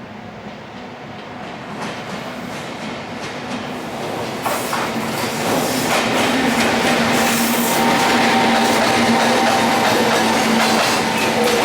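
Container freight train hauled by an EF510 electric locomotive approaching and passing, growing steadily louder, with steady humming tones and, from about four and a half seconds in, rapid wheel clatter over the rail joints.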